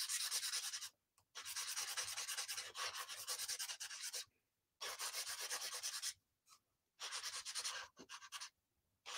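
Felt-tip marker scribbling back and forth on sketchbook paper, colouring in an area with rapid strokes. It comes in four spells with short breaks between.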